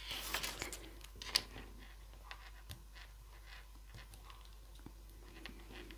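Faint rustling and light taps of hands handling paper: die-cut card-stock butterflies being pressed onto a folded card on a cutting mat. A few sharper clicks come in the first second and a half, then only soft scattered ticks.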